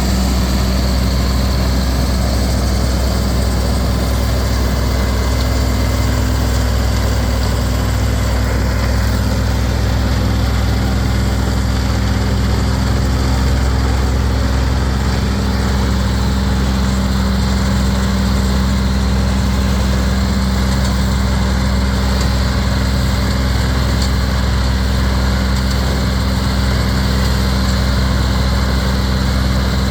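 Ford 7000 tractor's four-cylinder diesel engine running steadily, with the Northstar double-chop silage harvester it drives.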